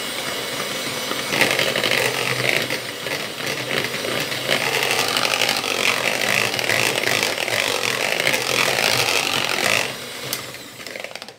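Arçelik electric hand mixer running, its twin beaters whirring through cake batter in a plastic bowl. It gets louder about a second in, runs steadily, and is switched off at about ten seconds.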